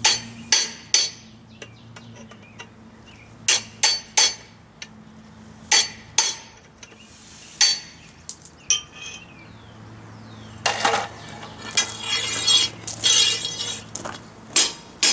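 Hammer blows on an anvil while forging, struck in twos and threes with pauses between, each one ringing. About two-thirds of the way in there are a few seconds of rapid scratchy scraping or light tapping before the hammer blows resume.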